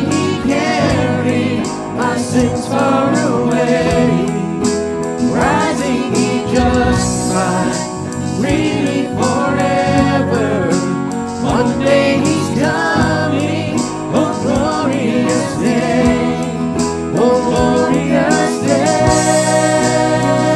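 Contemporary worship song played by a band, full and steady, with a melody line that bends and glides in pitch over sustained chords.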